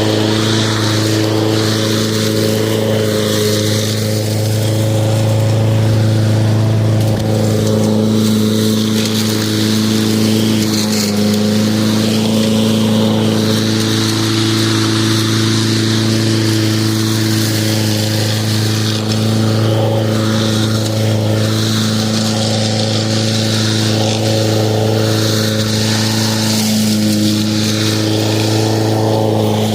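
Lawn mower running steadily at an even pitch, a constant droning hum with a hiss above it.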